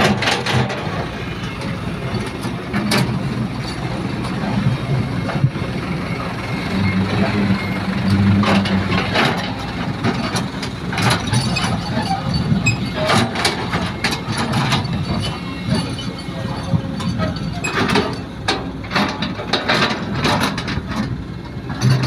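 Sumitomo hydraulic excavator's diesel engine running steadily, swelling for a couple of seconds about a third of the way in, with scattered clanks and knocks, more of them near the end.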